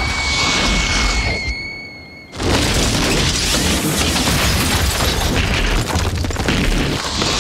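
Film sound effects of a nuclear blast wave: a dense, heavy rumble of wind and debris under a steady high ringing tone. About one and a half seconds in the rumble falls away, leaving the ringing almost alone. About a second later the rumble slams back in and runs on.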